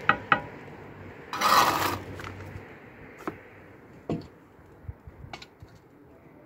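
Bricklaying work with a trowel and bricks: two light taps at the start, a short loud scrape about a second and a half in, then a few scattered clicks and knocks as cut bricks are set in mortar.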